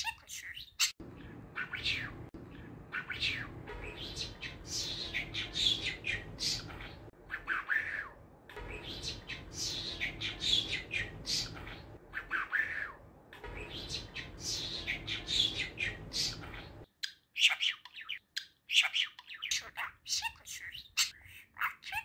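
Budgerigar chattering: a rapid, continuous run of chirps, warbles and squawks. A low steady background noise lies under it for most of the stretch and drops away about three quarters of the way through.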